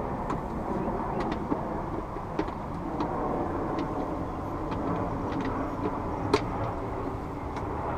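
Light clicks and knocks of the Fiat Abarth's plastic air cleaner cover being handled and fitted back over the air filter, the sharpest click about six seconds in, over a steady low rumble of background vehicle noise.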